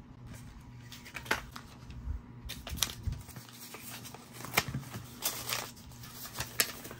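Plastic packaging and coin holders being handled: irregular sharp clicks and light crinkling.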